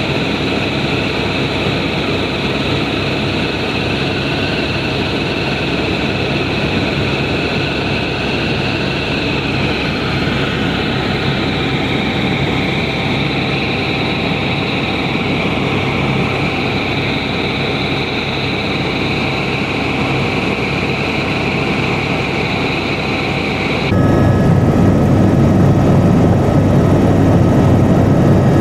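Cabin noise of an AS355 Squirrel 2 twin-turbine helicopter in cruise: steady rotor and engine rumble with a high turbine whine. About 24 seconds in the sound changes suddenly to a louder, lower rumble without the whine.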